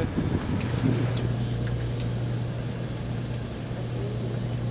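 Steady low engine hum of a tour minibus, heard from inside its cabin, setting in about half a second in, with a few light clicks in the first two seconds.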